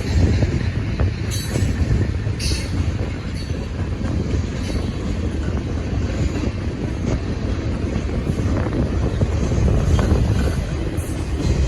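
Freight cars of a long CSX train rolling past: a steady low rumble of steel wheels on rail, with brief high-pitched wheel squeaks about one and two and a half seconds in.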